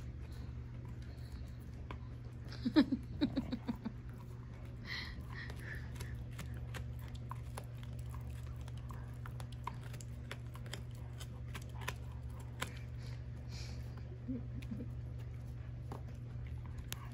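A large dog gnawing a chew stick held in a person's hand: irregular clicks and scrapes of its teeth on the stick, over a steady low hum. A short burst of a person's voice about three seconds in is the loudest moment.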